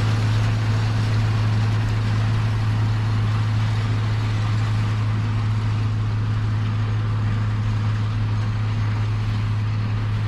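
John Deere 4230 tractor's six-cylinder diesel engine running steadily at a constant speed under load while pulling a round baler.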